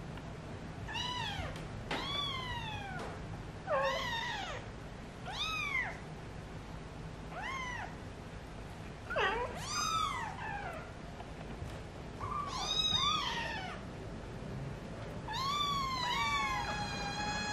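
Eighteen-day-old kittens mewing: about a dozen short, high-pitched cries, each rising then falling in pitch. Near the end comes one longer cry that falls and then holds.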